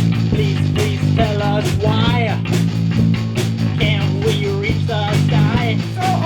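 Rock band playing: a steady bass line and regular drum hits under a wavering melody line that bends up and down in pitch.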